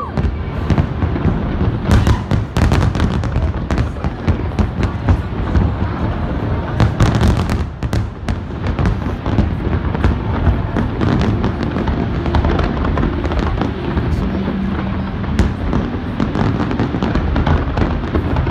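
Aerial fireworks display going off in a dense, continuous barrage of bangs and crackling bursts.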